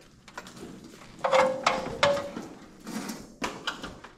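Heavy timber rim joist being shifted against the wooden wall framing: two short loud scrapes or creaks of wood on wood about a second and two seconds in, then a few lighter knocks near the end.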